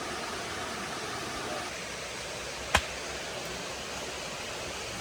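Steady rushing background noise, with one sharp click a little past the middle.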